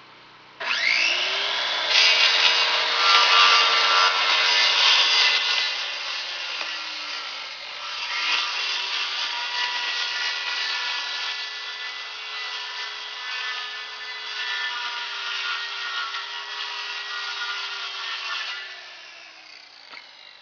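Circular saw cutting quarter-inch plywood. The motor spins up about half a second in and runs through a cut, winds down, then starts again for a second, longer cut that winds down near the end.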